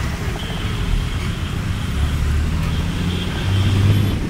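City bus engine running as the bus drives along, heard from a passenger window with street traffic around; the engine note climbs and grows louder about three and a half seconds in.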